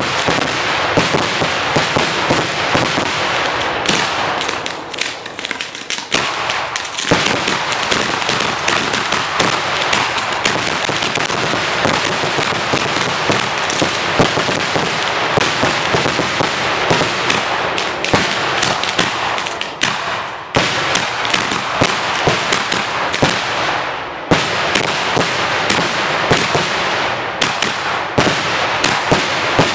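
Fireworks going off in a dense, continuous barrage of sharp pops and bangs, easing briefly about five seconds in and twice more in the second half.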